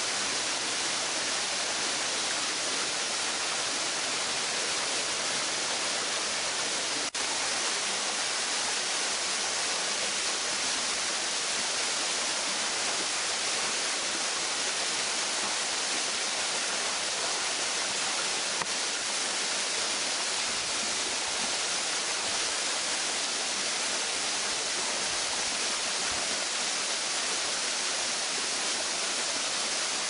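Waterfall pouring down a rock face into a plunge pool: a steady, even rush of falling water, bright and hissy, without a break.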